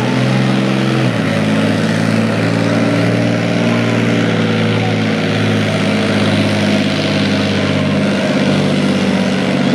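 Leopard 2 tank's MTU V12 twin-turbo diesel engine running under heavy load while dragging a pulling sled; its pitch drops once about a second in, then holds steady.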